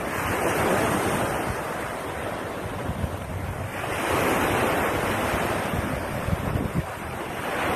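Surf washing on a beach, swelling in two surges a few seconds apart, with wind buffeting the microphone.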